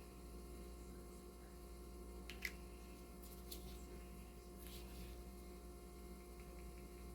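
Steady low electrical hum with a few faint clicks, the sharpest about two and a half seconds in.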